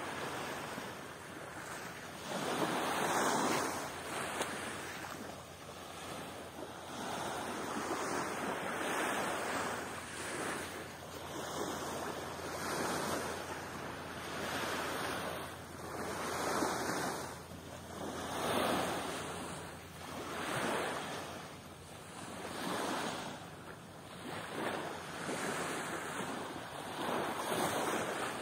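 Small waves washing in, swelling and fading about every two seconds, with wind on the microphone.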